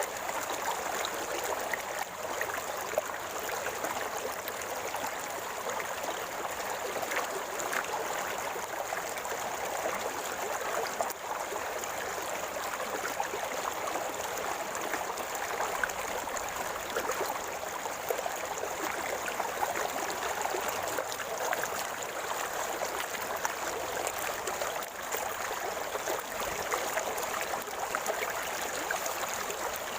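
River water flowing and gurgling steadily.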